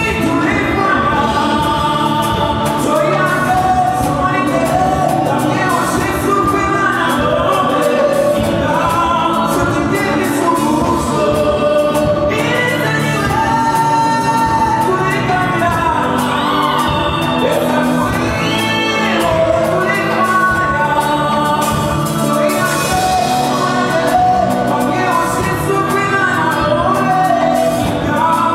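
Gospel song performed live: a male lead singer sings a melody into a microphone over a full band with drums.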